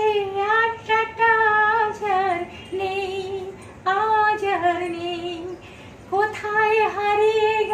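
A woman singing solo and unaccompanied, holding long notes with vibrato, in about four phrases with short breaks between them.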